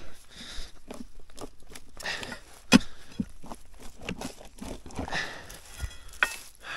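Footsteps and scuffing with scattered knocks, one sharper knock near the middle.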